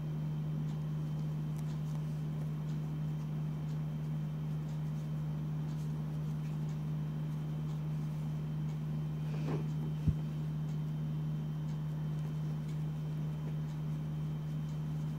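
A steady low hum, with faint light ticks now and then and one sharp click about ten seconds in.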